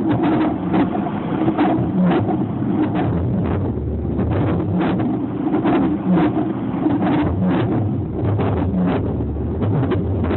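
Car driving, a steady low rumble with frequent irregular clicks and knocks.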